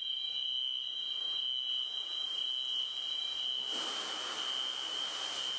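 Steady high-pitched alarm tone, a hangar fire alarm sounding during a foam discharge. About two-thirds of the way in, a rushing hiss of pouring foam and spray joins it.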